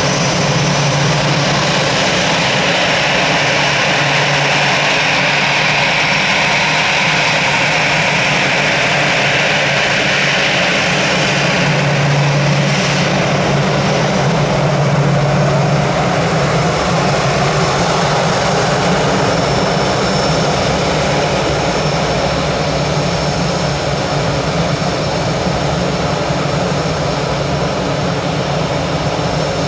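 Airbus A319 jet engines running steadily on the ground, with an even rushing noise over a low hum. A higher whine sits in the sound for the first ten seconds or so, then fades.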